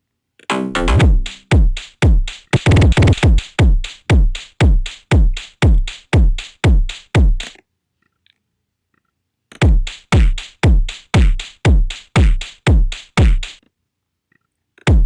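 Distorted krushfunk drum-machine beat: a steady stream of heavy kick hits, about three a second, each dropping in pitch, with a pitched sample layered over the first few seconds. The pattern stops dead twice for a second or two before coming back in.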